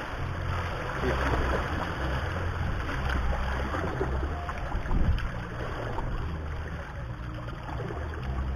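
Wind buffeting the microphone in uneven gusts over water washing against the rocks of a sea breakwater.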